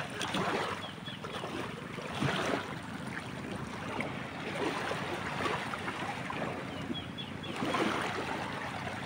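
Small waves lapping at the shoreline and against a wooden outrigger boat's hull, with wind on the microphone and a few short high chirps.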